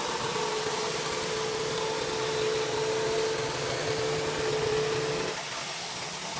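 Pressure washer running with a steady hiss of high-pressure water spray; its steady machine tone drops away about five seconds in.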